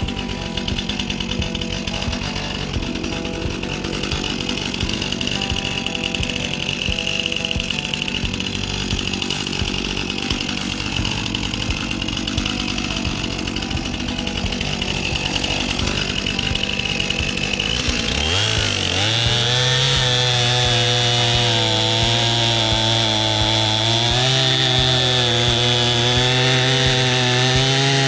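Stihl chainsaw running at a low, rattling speed, then revved up about two-thirds of the way in to full throttle, holding a high engine note that wavers slightly as the chain cuts into wood.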